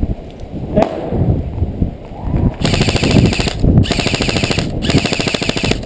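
G&G CM16 Raider-L airsoft electric rifle firing three bursts of full-auto, about a second each with short pauses between, starting about two and a half seconds in.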